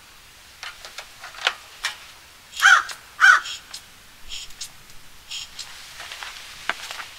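A crow cawing twice, a little over half a second apart, about three seconds in; these are the loudest sounds. Light clicks and taps come from hands working the controls of a petrol snowblower that is not yet running.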